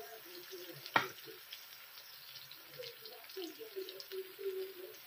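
Diced onion sizzling faintly in hot oil in a wok, with one sharp knock of the spatula against the pan about a second in. Low wavering pitched sounds join in the background from about three seconds in.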